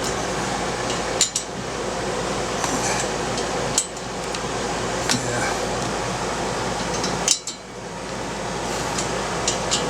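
A few sharp metallic clinks of hand tools against screws and the metal top-case mount bracket as it is being tightened down, over the steady noise of an air-conditioning unit running.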